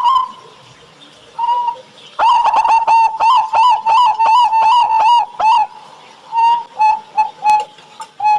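Local zebra dove (perkutut) cooing: a short coo, then a fast run of about a dozen notes, about four a second, for some three seconds, then a few spaced notes near the end.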